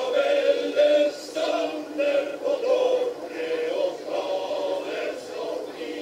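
Men's choir singing unaccompanied, holding sustained chords.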